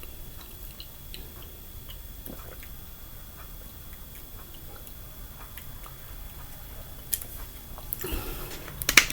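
A person chewing crispy fried chicken gizzards: faint crunching and mouth sounds, with a sharper click about seven seconds in and louder crunching near the end.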